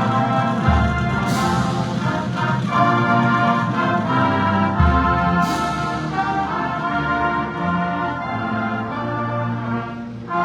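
High school marching band playing held brass chords, with two bass drum hits each followed by a cymbal crash, about four seconds apart. The sound dips briefly at a break between phrases near the end.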